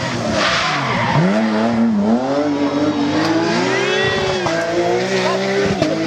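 Rally car engine at full throttle passing close by. Its note dips about a second in, then climbs steadily for about three seconds and holds high near the end, with a rush of noise in the first second.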